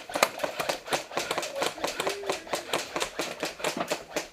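Airsoft guns firing, a steady string of sharp snapping shots at about five a second.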